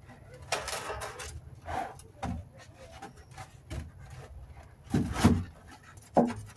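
Foam blocks and wing parts being handled and fitted by hand: rubbing and scraping with a few knocks, loudest about five seconds in.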